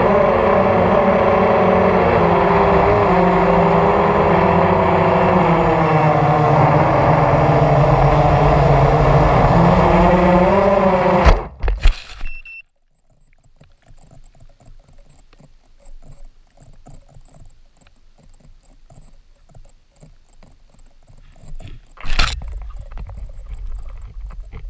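Hexacopter's brushless motors and propellers whining steadily in flight, the pitch wavering with throttle. About eleven seconds in, a sudden impact as it comes down in grass and the motors cut off, leaving faint rustling, then a loud knock near the end.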